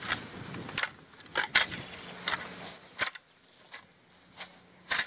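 A garden hoe chopping into soil and weeds: a series of sharp, irregular strikes, about two a second, softer after about three seconds in.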